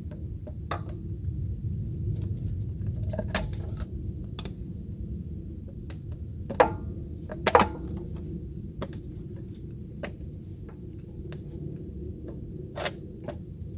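Irregular metallic clicks and clinks of a grease gun coupler being pushed and fumbled onto a hard-to-reach grease fitting, with the two loudest clinks about halfway through, over a steady low hum.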